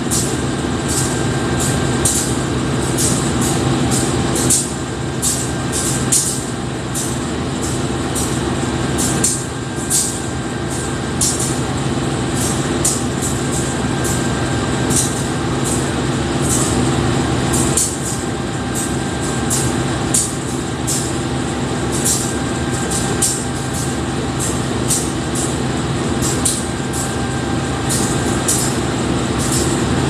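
A GE CC 203 diesel-electric locomotive idling steadily at a standstill, its V8 diesel engine giving a low hum. Short, sharp, high-pitched ticks come several times a second over the top.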